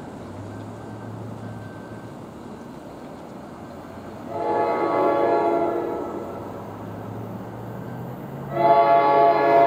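An approaching NJ Transit train's multi-chime air horn, a Nathan K5LA, sounding for the grade crossing: one blast of about two seconds about four seconds in, then a second, louder blast starting near the end.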